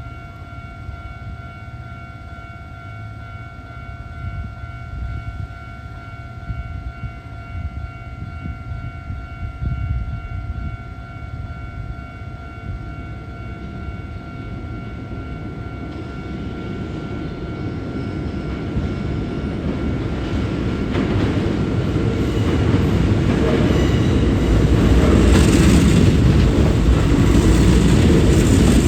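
Japanese level-crossing warning bell ringing with a steady tone while a Hankyu electric train approaches. The train's rumble builds from about halfway through and is loudest near the end, with wheels clacking over the rail joints.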